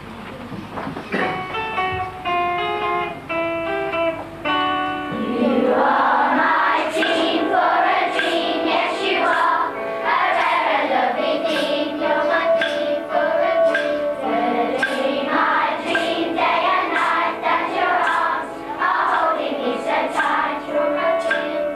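Children singing a song together with instrumental accompaniment, after a short instrumental introduction of a few seconds; a light regular beat ticks through it.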